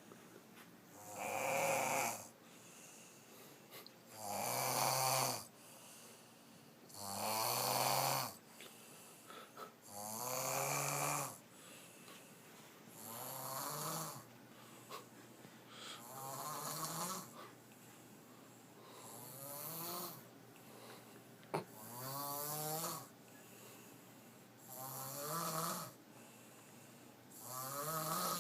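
Snoring in a steady rhythm, one long snore about every three seconds, each snore rising in pitch. The first few snores are the loudest. A single sharp click comes about two-thirds of the way through.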